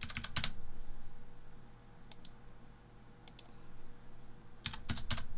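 Short sharp clicks from a computer keyboard and mouse: a quick cluster at the start, a pair about two seconds in, another pair about three seconds in, and a further cluster near the end.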